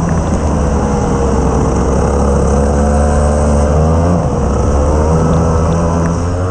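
Onboard sound of a Rotax Max 125 cc two-stroke kart engine under load: the revs fall away, climb, drop sharply about four seconds in, then rise again as the kart brakes and accelerates through corners.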